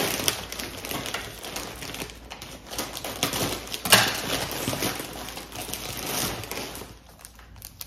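Plastic packaging rustling and crinkling as parcel items are handled and rummaged through, with scattered small clicks and one sharper rustle about four seconds in.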